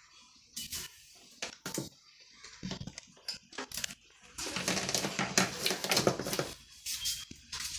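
Small clicks and knocks of things being handled on a salon counter, then about two seconds of cloth rustling as a towel is picked up and handled, starting about four and a half seconds in.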